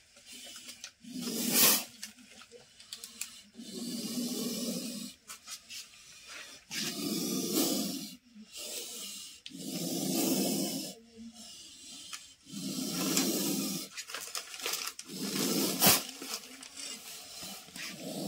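A cornered cobra hissing in loud, rough exhalations, about six of them spaced two to three seconds apart, the defensive warning of a disturbed cobra. A sharp click is heard near the start and another near the end.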